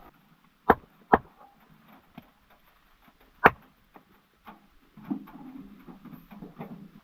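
Three sharp knocks: two close together about a second in and a louder one near the middle. In the last two seconds come low scraping and rustling with small clicks.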